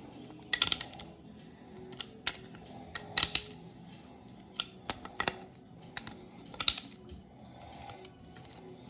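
Irregular sharp metallic clicks and taps of hand tools on a bicycle pedal's axle nuts while the preloaded nut is loosened to set the bearing adjustment.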